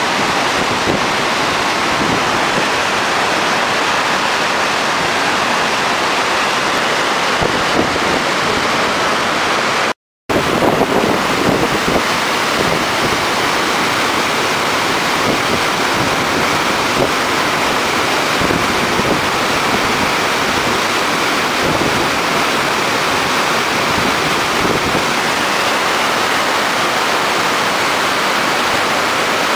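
White water rushing steadily over a river weir and churning in the stopper wave below it. The sound cuts out for a moment about ten seconds in.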